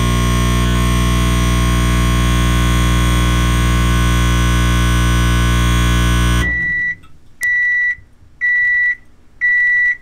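1000-watt microwave oven running with a loud, steady electrical hum that cuts off suddenly about six and a half seconds in. It then gives four short beeps about a second apart, the end-of-cycle signal that the timer has run out.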